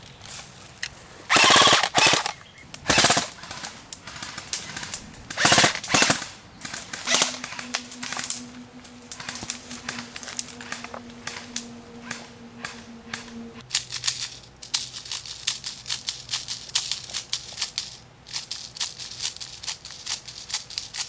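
Airsoft guns firing in bursts of rapid sharp clicks. A few loud bursts come in the first six seconds, then a steady crackle of quicker, lighter shots.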